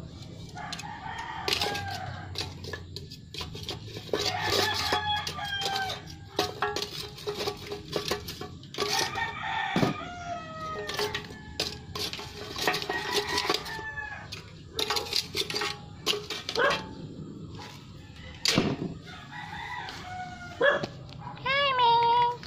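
Roosters crowing again and again, with chickens clucking, over scattered sharp clicks and knocks. A loud, short pitched call comes near the end.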